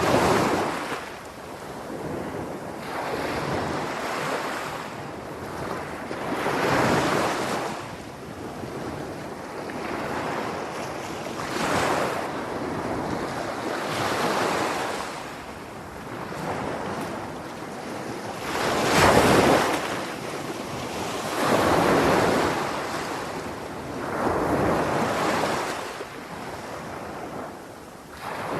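Sea waves washing onto a shore, the rush swelling and fading every few seconds, with the biggest wave about two-thirds of the way through.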